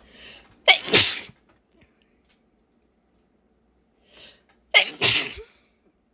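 A woman sneezing twice, about four seconds apart, each sneeze preceded by a short sharp intake of breath. The sneezes are stuffy, as with a blocked nose from a cold.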